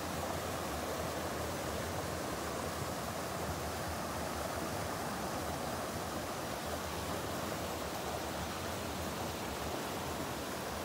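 Small waterfall pouring between boulders into a rock pool: a steady rush of falling water.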